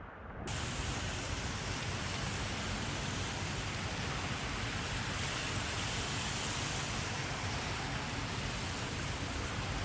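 Heavy rain falling steadily, a dense even hiss that starts suddenly about half a second in.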